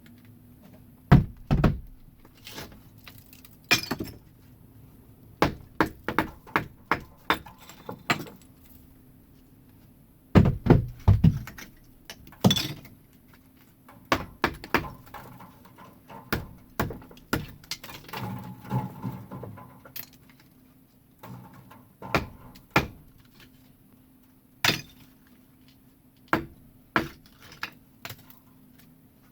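Brick chimney being torn down: irregular knocks and thuds of bricks being struck and broken loose, sometimes single, sometimes in quick runs of several blows.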